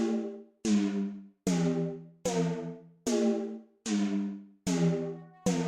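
Instrumental music: a chord struck about every 0.8 seconds, each strike fading away before the next. A held higher tone comes in near the end.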